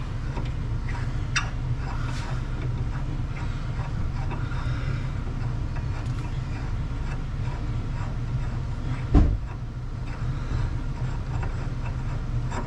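Scattered metal clicks from parts and hand tools being worked on a car's suspension, with one heavy thump about nine seconds in, over a steady low hum.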